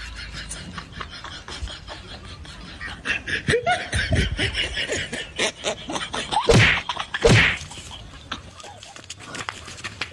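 Men's voices laughing and calling out in short bursts, loudest around four and seven seconds in, over a scattering of sharp clicks.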